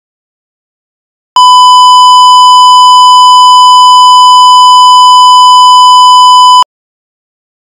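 Electronic hearing-test tone: one steady pitch held for about five seconds, very loud, starting about a second and a half in and cutting off sharply.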